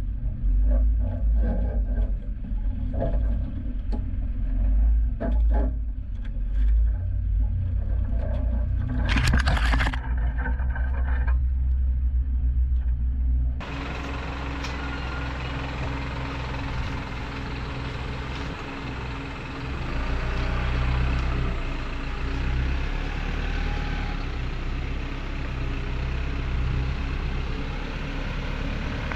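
Isuzu NPS 4x4 truck's four-cylinder turbo-diesel engine running at low speed as it crawls along a rough, narrow bush track. For the first half it is a deep rumble with scattered knocks and clunks, and a short loud rushing burst about nine seconds in. After about thirteen seconds the engine drones on at a steady level, with a broader hiss over it.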